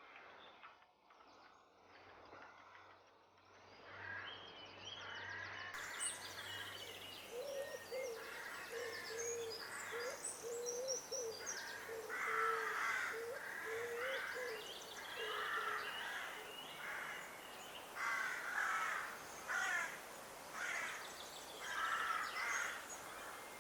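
Crows cawing repeatedly in short runs of harsh calls, starting a few seconds in, over quiet rural evening ambience, with a thinner wavering bird call underneath for a while.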